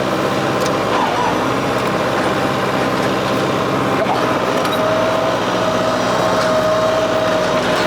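New Holland WorkMaster 55 tractor's diesel engine running steadily under work. A thin, steady high whine comes in about halfway through and holds.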